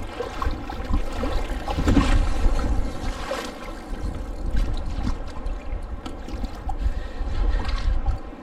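Wind buffeting the microphone at sea, with water lapping and splashing around a kayak.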